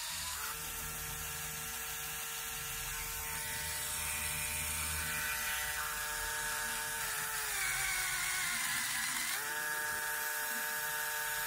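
Lego Technic electric motor running a plastic gearbox, a steady whine with the rattle of small plastic gears. About seven seconds in the whine sags in pitch for roughly two seconds, then snaps back up to its earlier pitch.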